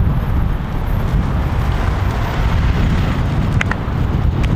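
Wind rumbling on the microphone, a loud, even low-pitched noise, with two short clicks near the end. The electric go-kart pulling away makes little sound of its own under it.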